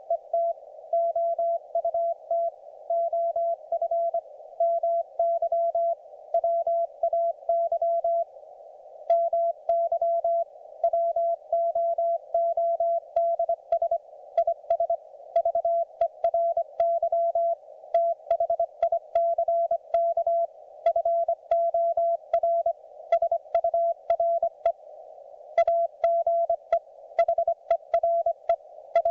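Morse code from a YouKits HB-1B QRP transceiver on the 40 m band: a single steady tone keyed on and off in dots and dashes, over a narrow band of receiver hiss, with a short pause about eight seconds in.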